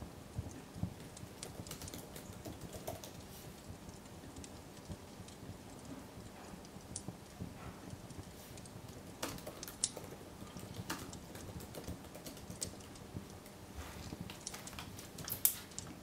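Typing on a laptop keyboard: irregular runs of light key clicks, with a sharper click near the end.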